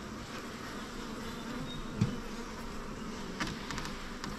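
Honeybee colony buzzing steadily in an open wooden hive box. A brief thump comes about two seconds in, and a few light clicks follow near the end.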